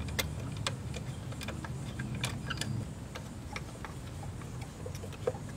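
Small irregular clicks and ticks of spark plug wires and their plastic boots and separators being handled and pressed into place, with a sharper click about five seconds in, over a steady low hum.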